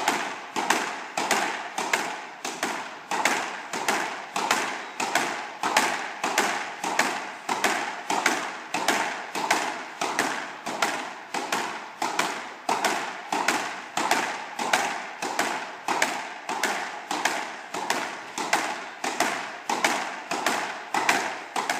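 Squash ball being struck by a racket and slammed into the front wall in a fast, unbroken figure-of-8 drill, about one and a half shots a second. It makes a quick, even rhythm of sharp knocks that echo in the court.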